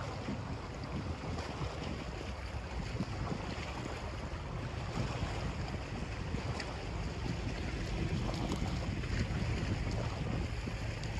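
Steady wind noise on the microphone, with choppy lake water lapping against a bass boat's hull.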